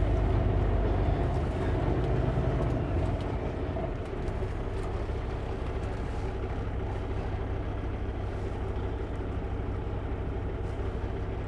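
Kenworth W900L semi truck's diesel engine running steadily under load with road noise, pulling a loaded Super B trailer set. The engine sound eases slightly about four seconds in, then holds steady.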